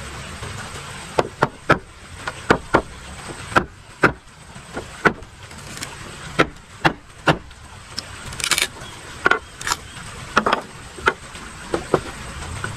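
A blade chopping and tapping into a bamboo piece set on a wooden block: about twenty sharp, irregular knocks, often in quick twos and threes, with one longer scrape about two-thirds of the way through.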